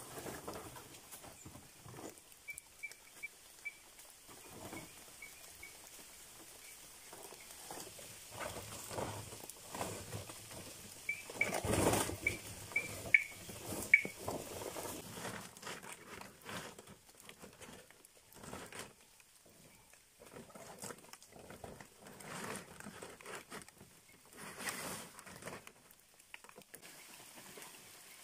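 Large fresh palm fronds rustling and scraping as they are dragged and laid over a shelter frame, with irregular crackles and knocks, loudest about halfway through. A short run of quick, high chirping notes sounds twice, near the start and again in the middle.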